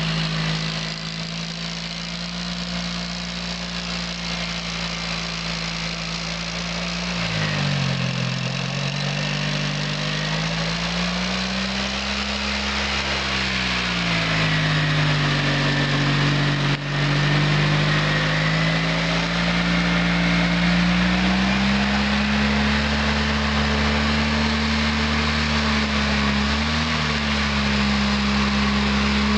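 Two-cylinder Oka car engine on a homemade tractor running under ploughing load. Its speed sags and recovers several times, then holds higher and steadier in the last third, with one sharp click about 17 seconds in.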